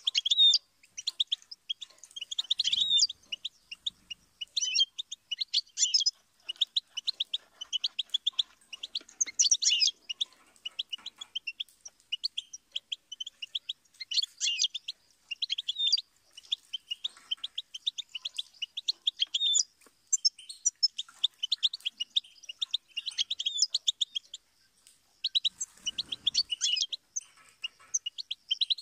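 European goldfinch singing: a fast, unbroken twittering of rapid high chirps and trills, delivered in phrases a few seconds long with short pauses between them. There are a couple of soft low knocks, one about three seconds in and one near the end.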